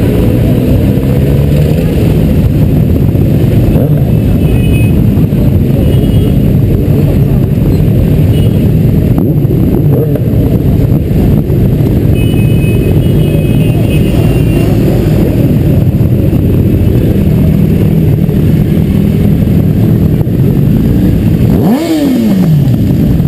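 Several motorcycle engines idling and ticking over at walking pace in a slow-moving group, with a steady low rumble. Near the end one engine is briefly revved, its pitch jumping up and falling straight back.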